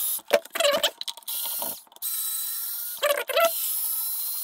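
Cordless electric screwdriver backing screws out of a plastic e-bike battery case: about four short runs of a steady motor whine, with clicks and rattles between them as the bit is moved from screw to screw.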